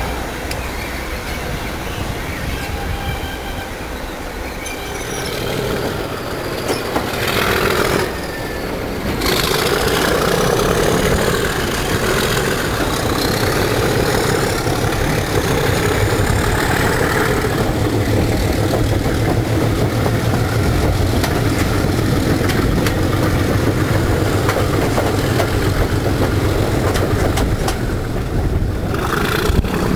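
Pair of class 37 diesel locomotives hauling the train, heard from an open coach window: their engines grow louder about nine seconds in and then hold a steady heavy drone under the wheel and rail noise.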